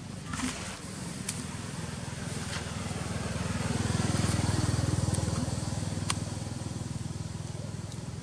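A small engine runs with a low, fast-pulsing hum that grows louder about four seconds in and then fades, as it passes by. A few light clicks sound over it.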